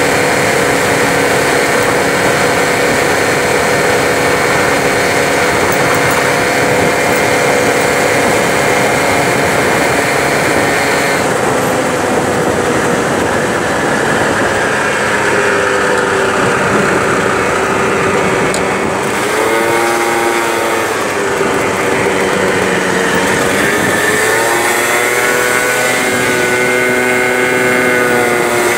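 50cc scooter engine running at riding speed over a haze of wind and road noise. In the second half the engine note falls and rises a couple of times as the scooter slows and speeds up again in traffic.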